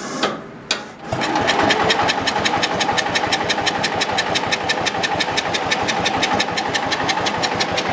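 Kohler engine of a George Work Bird zero-turn mower catching about a second in after a few knocks, then running steadily with an even beat. It is running on gas poured down the carburettor, because the fuel pump is not bringing fuel up.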